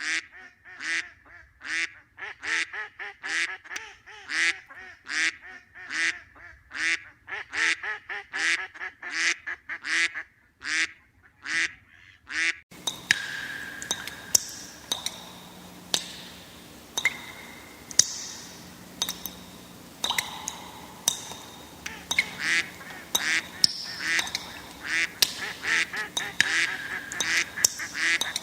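Ducks quacking: a steady run of quacks at about two a second, which gives way about halfway through to a background hiss with scattered quacks and sharp clicks.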